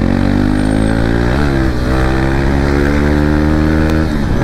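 KTM RC single-cylinder motorcycle engine accelerating hard, its pitch climbing steadily. There is a brief dip in pitch for a gear change about a second and a half in and another near the end, with wind rushing past.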